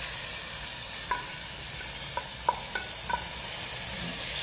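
Hot ghee with fried coconut pieces and cashews tipped from a frying pan into a pot of mango payasam, sizzling steadily. A wooden spatula knocks and scrapes against the pan about five times in the middle, each knock with a short ring.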